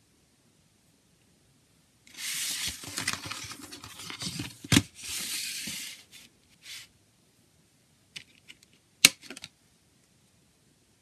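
Cardboard CD digipak being unfolded and slid across a table: about four seconds of scraping and rustling with a sharp tap partway through, then a few light clicks and one sharp tap near the end.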